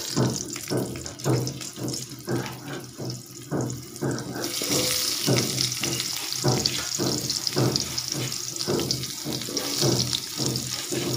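Raw potato chunks dropped one at a time into hot oil in a metal kadai, each landing with a short knock, and about four seconds in the oil begins a steady sizzle that goes on under further knocks.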